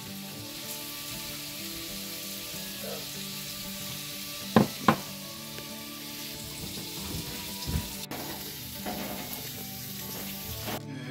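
An upturned ceramic mug knocked twice, about a third of a second apart, to release a microwaved mug bread onto a plate, with a softer thump a few seconds later, over a steady hiss.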